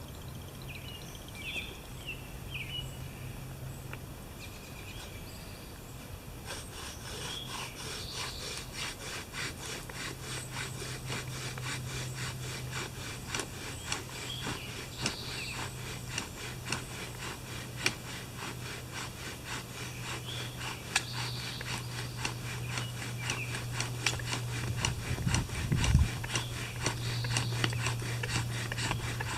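Fire by friction: a bow drill working a wooden spindle back and forth in a cedar hearth board. Steady rhythmic rubbing with a low hum, growing louder toward the end.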